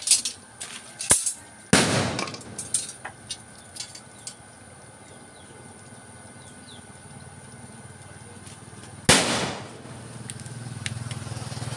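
A series of sharp knocks and bangs, several close together in the first few seconds and another loud one near the end, the loudest with a brief noisy tail.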